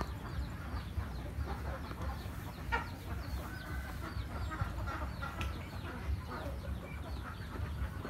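Chickens clucking in a pen, among many short, high chirping calls, with one louder call about three seconds in, over a steady low rumble.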